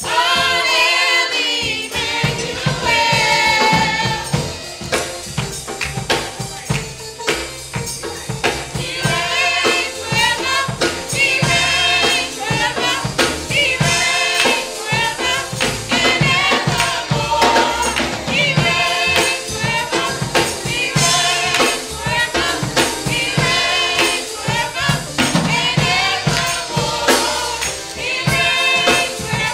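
Gospel praise song sung by a choir of youth and adult voices, over percussion with many quick, sharp strikes.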